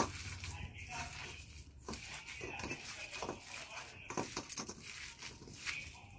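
A hand kneading and squeezing pumpkin flowers into a thick gram-flour batter in a steel bowl: irregular soft crushing and squelching sounds.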